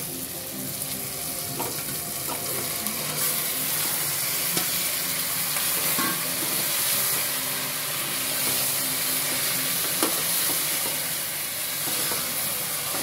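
Marinated chicken frying in an aluminium pot with fried onions and tomatoes, a steady sizzle as a steel ladle stirs it, with a few scattered clinks and scrapes of the ladle against the pot.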